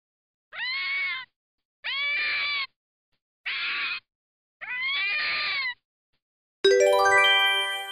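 Red fox giving four drawn-out calls, each under a second long, with a pitch that rises and then falls. About six and a half seconds in, a bright ringing chime sounds.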